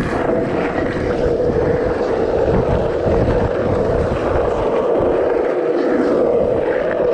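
Skateboard wheels rolling continuously over concrete: a loud, steady rolling rumble with a droning hum, rising and falling slightly as the board pumps through the track.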